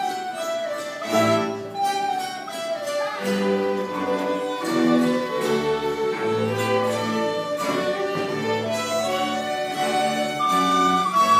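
Folk orchestra of fiddles, cello and dulcimers playing a tune together, a melody line over moving bass notes.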